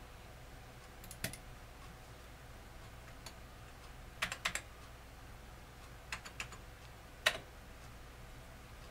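A handful of short key and button clicks from an Amiga 1200's keyboard and mouse being used: one about a second in, a quick run of three near the middle, and a few more towards the end, over a faint steady background.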